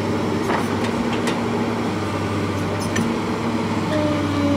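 Excavator's diesel engine running steadily, with a low hum and faint clicks; a higher steady tone joins near the end.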